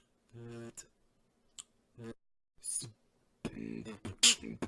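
A beatboxer's mouth-made sound effects: a short hummed tone, a few sharp mouth clicks and a brief hiss, then from about three and a half seconds in a dense run of beatbox sounds with one loud sharp burst near the end.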